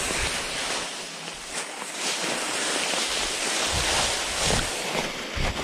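Dry fallen leaves on the forest floor rustling and crunching, mixed with wind noise on the microphone: a steady rush without any clear engine note.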